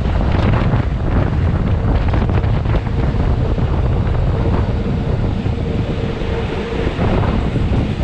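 Wind buffeting the microphone of a camera mounted on the window of a moving Rhaetian Railway Bernina line train, over the running noise of the train. A faint steady whine runs through the middle few seconds.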